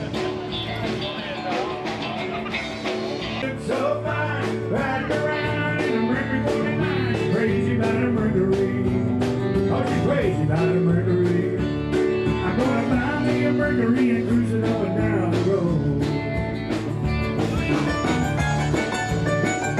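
Country-style music with guitar and drums.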